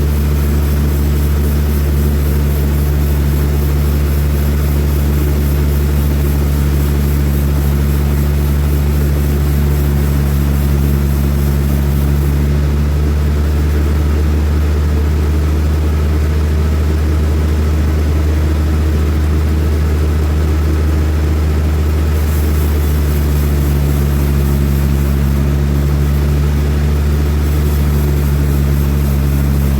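Large sawmill machinery running steadily, a deep, even engine-like hum.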